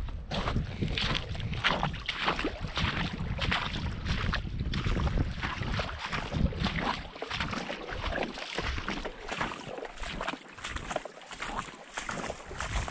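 Gusty wind buffeting the microphone, with small waves lapping and splashing on a pebble lakeshore. The wind rumble breaks up into separate gusts in the second half.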